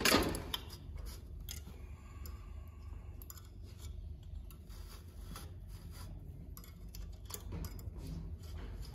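Hands handling a metal binder attachment and fabric bias tape on an industrial coverstitch machine: a louder scrape right at the start, then scattered small clicks and rustles over a steady low hum.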